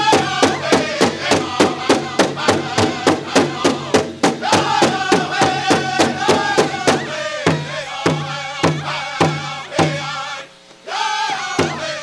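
Powwow drum group singing a Prairie Chicken dance song over a steady, fast beat of about three to four strokes a second on the big drum. The beat slows to about two strokes a second, stops briefly about ten seconds in, then picks up fast again at the end.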